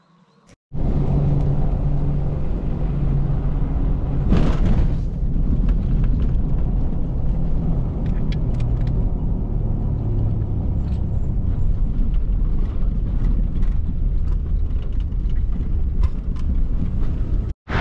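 Truck driving on a sandy dirt road, heard from inside the cab: a steady low engine and tyre rumble with small rattles and clicks throughout, and a brief louder burst of noise about four and a half seconds in.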